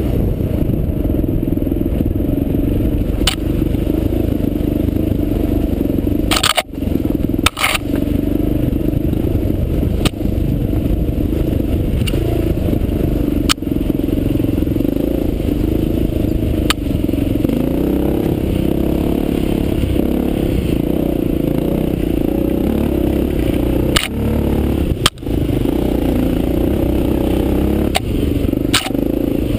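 Honda XR400's air-cooled single-cylinder four-stroke engine running under load as the bike is ridden fast over gravel and dirt trail. Its sound is heavy in the low end, with scattered sharp clicks and a few brief dips in level.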